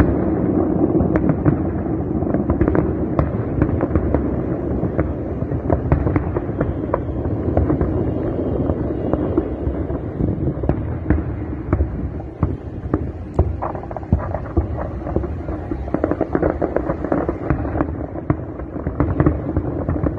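Aerial fireworks display going off continuously: dense, overlapping bangs and crackles over a steady low din.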